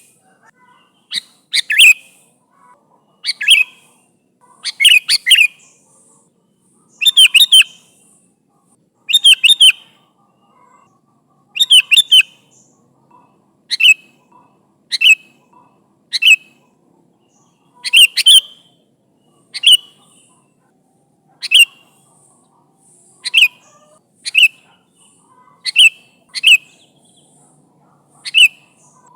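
Sooty-headed bulbul (kutilang) calling loudly and repeatedly to other bulbuls. Short bright chirping phrases come every second or two, clustered into quick runs of several notes in the first half and then mostly single notes.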